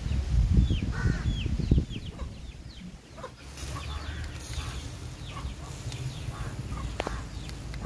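Chickens calling, short high peeps that fall in pitch, about two a second at first and then sparser, with low rumbling knocks during the first two seconds.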